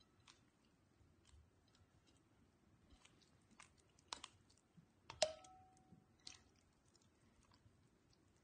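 Water slime being squeezed and squished by hand in a glass bowl: faint, scattered wet clicks and squelches. Two sharper clicks come about four and five seconds in, the second leaving a short ringing tone.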